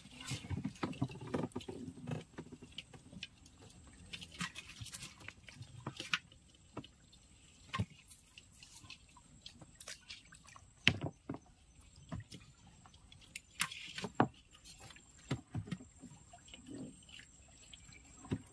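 Water dripping and splashing, with scattered light knocks, as a baited crab line is hauled into a boat. The drips and knocks come at an irregular pace.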